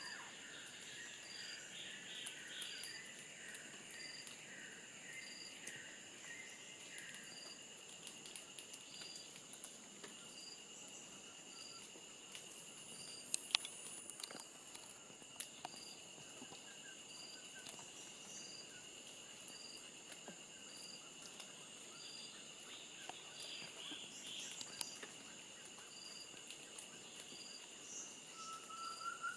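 Tropical forest ambience: insects trilling steadily and high, with a short chirp repeating about once a second and a series of bird calls over the first several seconds. Scattered faint clicks and ticks run through it, with one sharper click about halfway.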